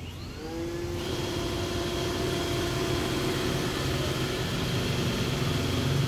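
iRobot Roomba 900-series robot vacuum starting off toward its dock: its motors spin up with a rising whine in the first second, then run at a steady whine as it drives.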